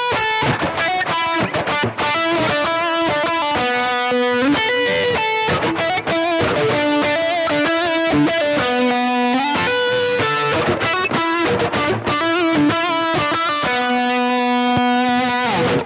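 Fender Ultra Series Telecaster electric guitar played with a lead tone, switching between pickup positions. It plays a continuous melodic line of single notes, some held for about a second, with some overdrive.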